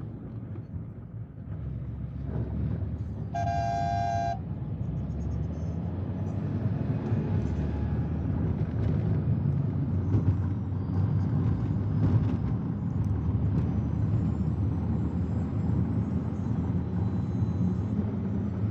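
Steady low road-and-engine rumble heard from inside a moving car's cabin, with a vehicle horn sounding once for about a second, about three and a half seconds in.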